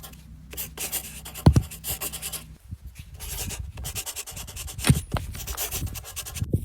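Firewood being handled: rough scraping and rubbing of wood, with three heavy thuds, about a second and a half in, near five seconds, and at the very end.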